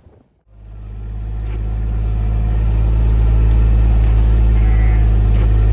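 Tractor engine running at a steady speed, a low even hum that builds up over the first couple of seconds and then holds steady.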